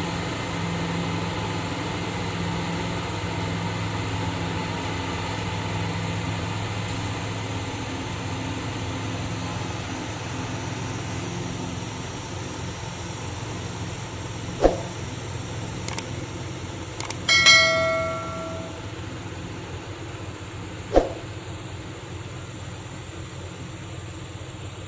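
Diesel engine of a loaded logging lorry running steadily and slowly fading, with a few sharp metallic clanks; one clank about two-thirds of the way in rings on for about a second like struck metal.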